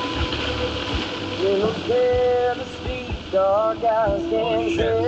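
Road and tyre noise inside a car at highway speed on a wet road, with rain hitting the windshield. From about a second and a half in, a song with a singing voice plays over it, with held, wavering notes.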